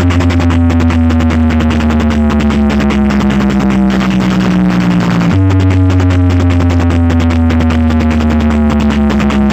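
Electronic dance music blasted through a large DJ sound-box system: heavy, sustained synth bass notes that slowly slide down in pitch, starting over again about five seconds in, under a rapid, dense beat.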